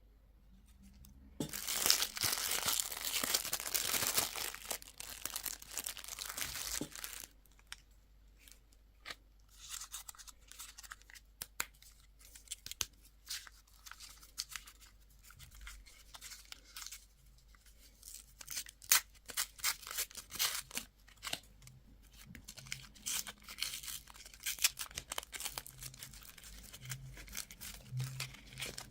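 Candy wrapper being torn open and crinkled by hand: a dense spell of tearing and crackling for the first few seconds, then scattered crinkles and clicks as the wrapping is handled.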